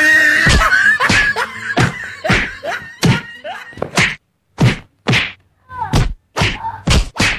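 A quick series of whacks, about two a second, of blows landing as one person beats another on the back, with a drawn-out cry over the first few.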